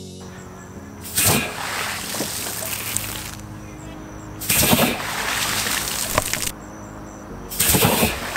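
Homemade water cannon, an old compressor tank fitted with a sprinkler valve, firing three blasts about three seconds apart. Each is a sudden rush of water released under air pressure, followed by a few seconds of the spray coming down.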